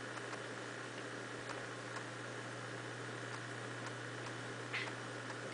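Quiet room tone: a steady low hum and hiss, with a few faint ticks and one brief soft rustle near the end.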